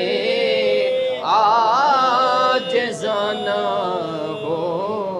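Men's voices chanting a devotional salam to the Prophet Muhammad, unaccompanied, in long held notes. The melody rises about a second in and turns wavering and ornamented.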